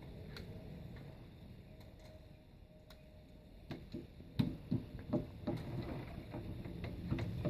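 Hand screwdriver being forced on a screw in a door strike plate: a run of irregular clicks and knocks starting about halfway through.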